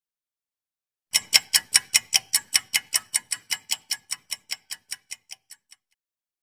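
Ticking-clock countdown sound effect: quick, even ticks about five a second, starting about a second in and fading out after about four and a half seconds.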